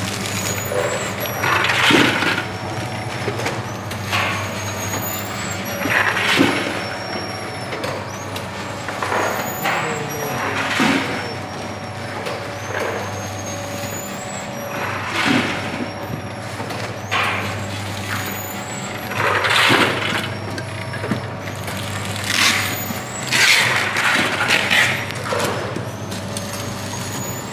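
Snack packaging machine with conveyor running: a steady low hum with short hisses recurring every two seconds or so, and faint high rising whines.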